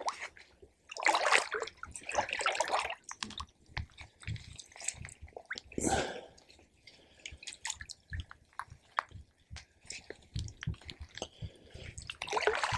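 Lake water splashing and dripping in irregular bursts as a freshly caught carp is lowered back into the water, with small wet knocks of handling in between.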